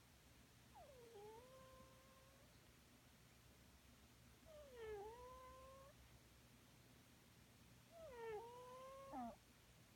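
Sleeping cat snoring, each breath coming out as a faint, meow-like whine that drops in pitch and then holds. Three breaths about three and a half seconds apart, with a short falling squeak at the end of the third.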